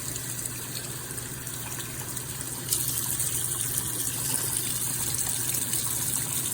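Water spraying steadily from a SparkPod filtered shower head, turning louder and hissier a little under three seconds in.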